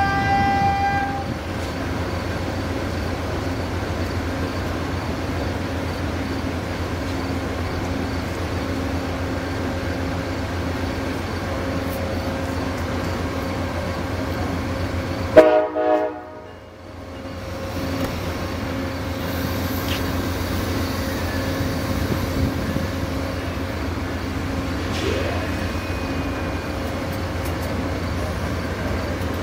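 Amtrak Southwest Chief standing at the platform, its diesel locomotives giving a steady low drone. A horn-like tone ends about a second in, and about halfway through a short, loud blast of the train horn sounds as the train gets ready to depart.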